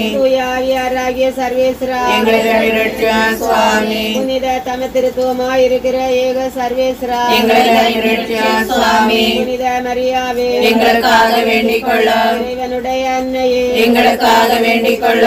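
A group of voices, women's and children's among them, singing a Tamil Catholic devotional chant together in long held notes.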